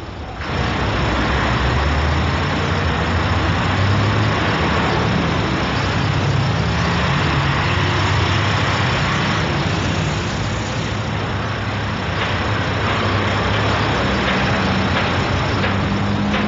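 Loud road traffic, heavy vehicle engines running with a shifting low drone, coming in abruptly about half a second in.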